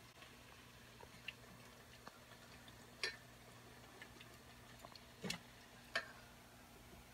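A handful of light, sharp clicks of a metal fork against a steel pot as fryjacks are turned in hot oil, over a faint steady hum.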